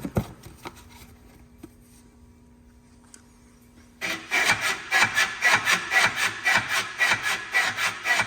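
Hyundai Grandeur HG's front stabilizer bar bushing creaking in a quick, even rhythm of rubbing strokes, about three a second, starting about four seconds in after a couple of knocks. The creak is the sign of a damaged stabilizer bushing.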